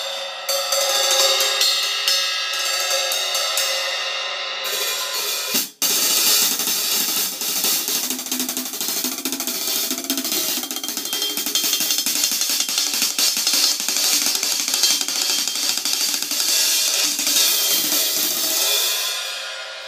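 A pair of 14-inch Zildjian Kerope hi-hat cymbals played with drumsticks in a continuous stream of strokes, washing and ringing, a dark, warm sound. The playing breaks off for an instant about six seconds in, then goes on and fades out near the end.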